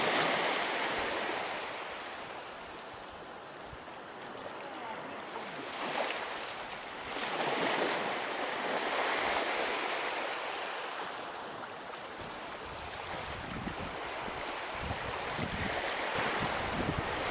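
Small waves breaking and washing over a shallow sandy beach, the surf swelling and ebbing every few seconds.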